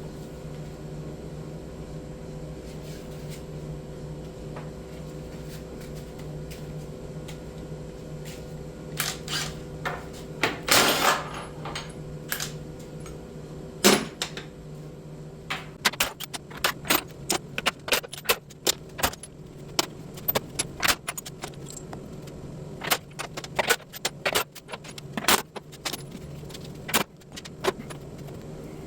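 Irregular sharp metallic clinks and taps, like hand tools and metal parts being handled, starting about nine seconds in and coming thick and fast in the second half, over a steady low machinery hum.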